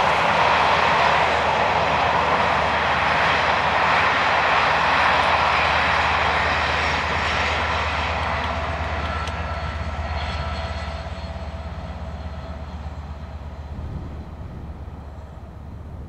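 Steam-hauled passenger train, A1 Pacific 60163 'Tornado' at its head, running past and fading into the distance: a steady rumble of the train on the rails that dies away gradually.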